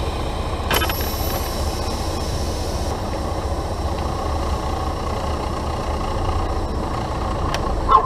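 Steady low engine and road drone inside the cab of a 2015 Volvo 670 semi truck driving on a snowy highway, with a sharp click about a second in and another shortly before the end.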